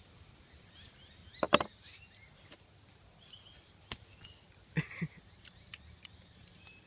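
Birds chirping in short calls over a low steady background hum, with a few sharp knocks, the loudest about a second and a half in and two more near the end.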